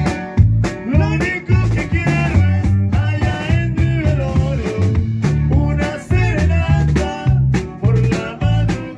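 Norteño band playing live: a strummed twelve-string bajo sexto and a drum kit over a bass line that alternates between low notes in a steady two-beat rhythm, with a melody on top.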